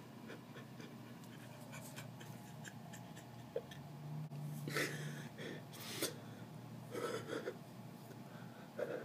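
A person's quiet breaths and short gasps, several of them in the second half, over faint scattered clicks.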